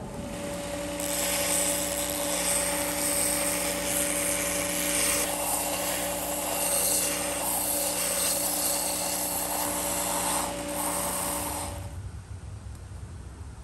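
A belt sander runs with a steady motor hum. From about a second in, a small wooden cylinder turned on a chopstick is pressed against the moving belt, giving a rough, hissing sanding sound. The sander cuts off near the end.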